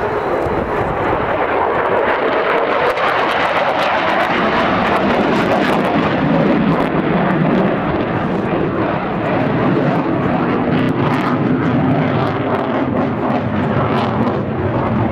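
Jet aircraft engine noise, loud and steady, as a single jet flies a display overhead. Around the middle its noise shifts lower in pitch as it passes.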